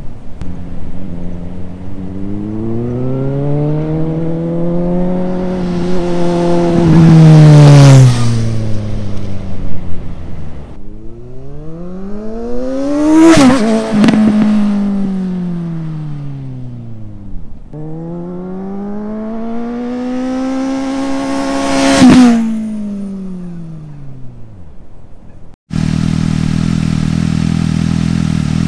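Suzuki GSX-S750 inline-four with a Yoshimura AT2 slip-on exhaust passing three times under throttle. Each time the engine note climbs in pitch, is loudest as the bike goes by, then falls away. Near the end it cuts to the same bike idling steadily up close.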